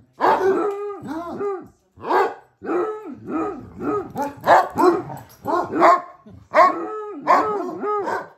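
Basset hound barking over and over in play, a quick string of pitched barks that rise and fall in pitch, a few of them drawn out longer.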